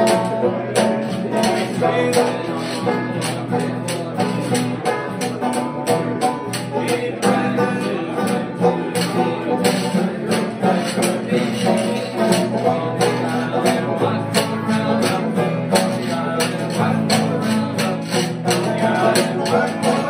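Small bluegrass-style string band playing: acoustic guitar and banjo strummed over a steady, quick beat from a washboard with a cymbal.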